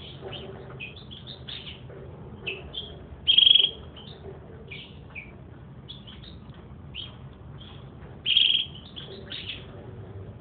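Domestic canary singing: a run of short, quick chirps broken by two louder, longer trills, about three seconds in and again about eight seconds in.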